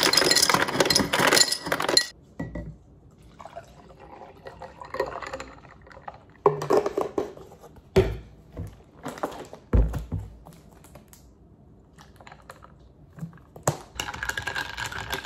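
A refrigerator door dispenser runs into a glass for about two seconds. Then come scattered pouring and handling sounds with two dull knocks near the middle. Near the end a metal spoon stirs and clinks in a glass of iced coffee.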